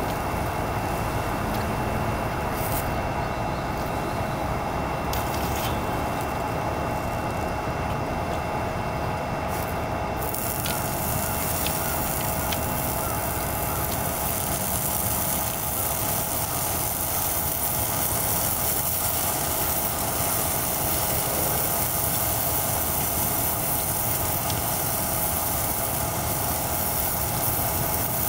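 Single-burner canister gas stove running with a steady roar under a pan of sausages and fries, the food sizzling; the high frying hiss grows louder about ten seconds in.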